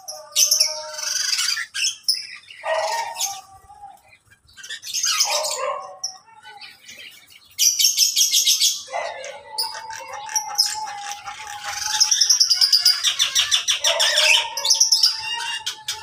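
Many birds in a mixed aviary of parakeets, cockatiels and small songbirds chirping and calling over one another. Several bursts of rapid high trilling come and go among shorter, lower calls.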